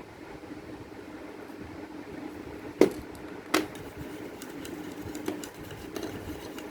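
A spoon knocks sharply against the mixing bowl twice, under a second apart, then gives a few lighter ticks while colour is worked into the slime mixture. A steady low hum runs underneath.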